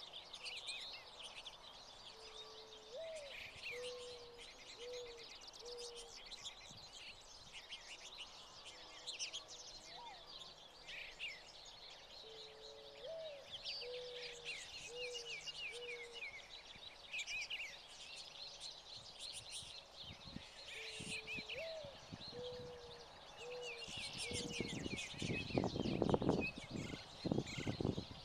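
A flock of American goldfinches and house finches twittering and chirping at a seed feeder, with many quick high calls overlapping. Behind them, a lower call of one rising note then three short notes repeats three times, and low rumbling noise comes in over the last few seconds.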